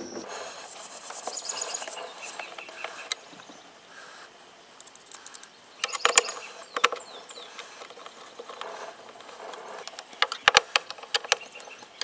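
T-handle Allen wrench turning the screws into a plastic handle bracket on a portable fridge, giving scattered small metal clicks and scrapes, in clusters about six seconds in and near the end. A steady high-pitched trill runs behind it, shrillest in the first couple of seconds.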